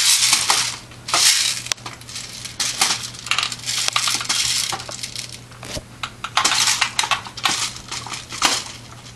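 Drum magazine being worked into an airsoft Thompson submachine gun replica: repeated rattling and scraping with sharp clicks as it is slid and pushed into place. The loudest rattling comes in the first second.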